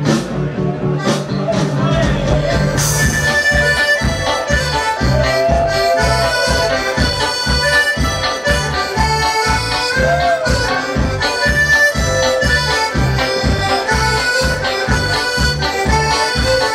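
Live folk-rock band playing an instrumental passage with an accordion prominent, over a steady beat from drums and bass.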